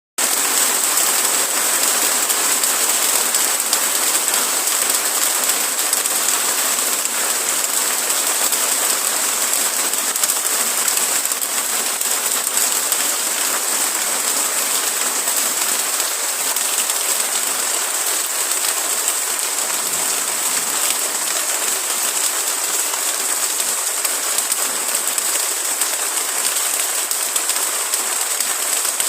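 Steady rain falling: an even, unbroken hiss with no let-up.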